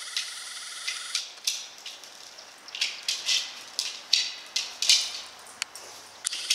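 A Rottweiler sniffing and snorting at a plastic ball in short, hissy bursts, irregularly, two or three a second. Before that, a steady high-pitched whine stops about a second in.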